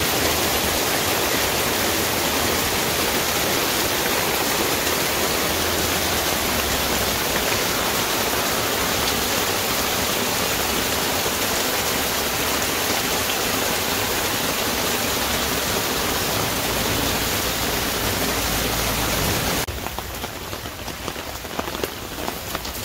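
Heavy rain pouring down steadily in a thunderstorm, turning quieter near the end.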